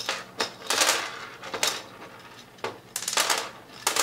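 Loose plastic rollers and races of a 3D-printed slew bearing clattering as the bearing is pulled apart, the rollers rattling out onto the table in several short bursts of clicks.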